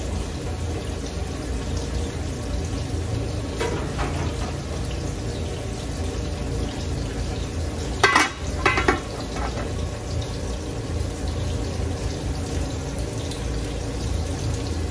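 An aluminium pot lid clanks twice against a large aluminium cooking pot about eight seconds in as it is set on. Under it runs a steady low hiss from the stove and pot.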